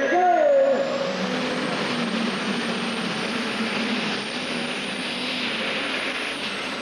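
Turbocharged diesel engine of an International Harvester super stock pulling tractor running flat out under load as it drags the sled, with a high whine rising over the first second or so and then holding steady.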